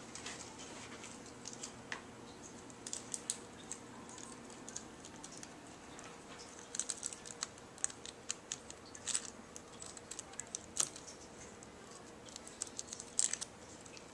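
Irregular light clicks and small plastic taps as a MacBook Pro keyboard top case is handled and its data cable is pushed into the connector on the logic board.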